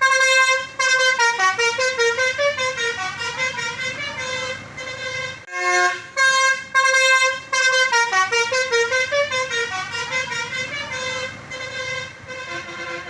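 Telolet bus horn, a multi-tone air horn playing a tune: a held chord, then a quick run of changing notes, with the whole phrase played again about halfway through.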